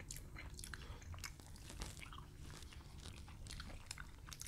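Faint, close-miked chewing: scattered wet mouth clicks and smacks of people eating with their mouths closed.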